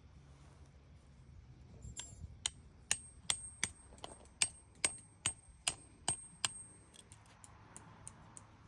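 Tent stake being hammered into the ground: about a dozen sharp strikes, a little over two a second, each leaving a high ring, then a few lighter taps near the end.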